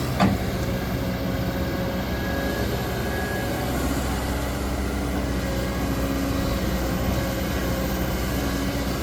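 Kobelco excavator's diesel engine running steadily with a low rumble. A single sharp knock sounds about a quarter second in.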